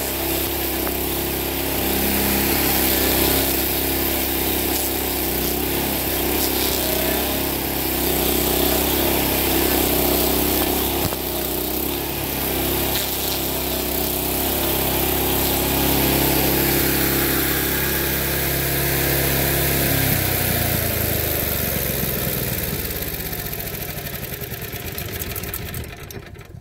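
Honda GX390 single-cylinder engine on a homemade stump grinder running hard as its cutter wheel chews into a birch stump, wood chips spraying. About twenty seconds in the engine note drops and slides, and the sound fades away near the end.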